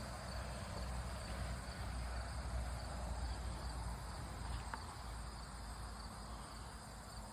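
Steady high-pitched chirring of an insect chorus, under a low rumble, with one faint tick about two-thirds of the way through.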